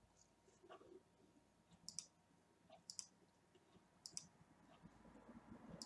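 Computer mouse button clicks: four or five single, sharp clicks spaced about a second apart, with near silence between them.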